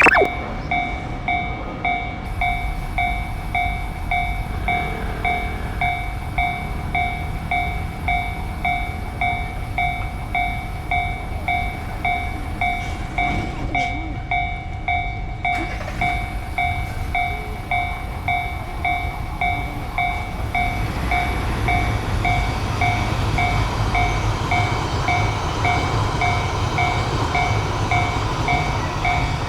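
Japanese railway level-crossing warning bell ringing in rapid, evenly spaced strokes, with a train's rumble growing louder during the second half.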